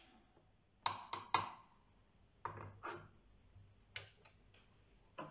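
Light clicks and knocks as a soldering iron is set down into its holder on the stand and a hand moves over the soldering station's case. The clicks come in small clusters: three about a second in, a few more around two and a half to three seconds, and single ones near four and five seconds.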